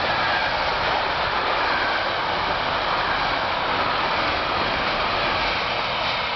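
Container flat wagons of a freight train rolling past: a steady rush of steel wheels on rail.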